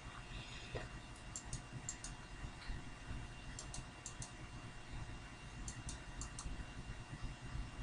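Faint clicking at a computer, in small clusters of two or three quick clicks every second or two, over a faint steady electrical hum.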